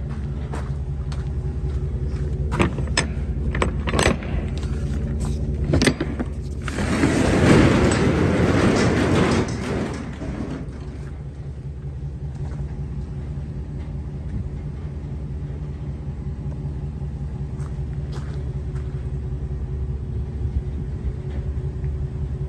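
Rear roll-up door of a box truck being unlatched with a few sharp metal clicks and knocks, then rolled up for about three seconds, the loudest part. A vehicle engine idles steadily underneath.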